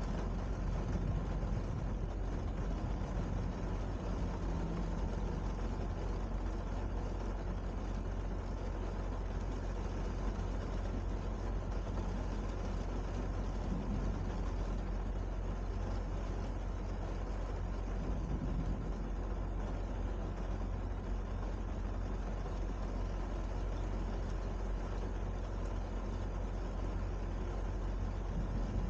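Steady rain with a constant low rumble underneath and no distinct thunderclaps.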